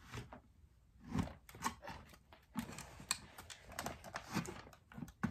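Irregular light clicks and taps of hard plastic as a large toy dinosaur and small plastic soldier figures are handled.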